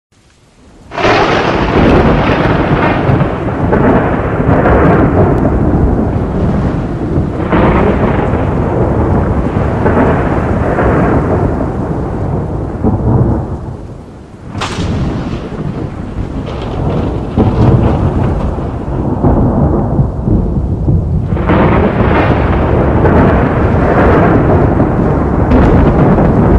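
Rolling thunder, as a storm sound effect. It breaks in with a sudden crack about a second in and rumbles almost without pause. It eases briefly, cracks sharply again about halfway through, and swells once more later on.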